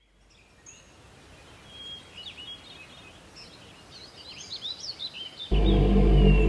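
Birds chirping and twittering, many quick rising and falling calls, fading in. About five and a half seconds in, a loud, low, steady drone cuts in suddenly and drowns them out.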